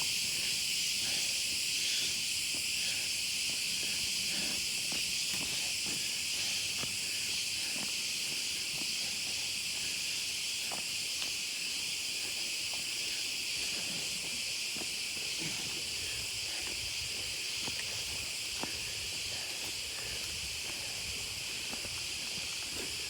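Steady, high-pitched insect chorus filling the forest, with faint scattered ticks and clicks underneath.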